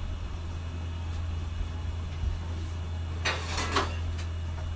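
A steady low hum throughout, with a short clatter of a serving spoon and clay kulhad cups about three seconds in as the tomato chaat mixture is spooned into the cups.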